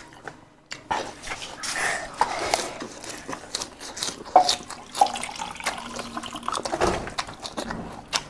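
Wet mouth sounds of a person eating boiled pork and lettuce by hand: chewing and lip-smacking, with many short wet clicks.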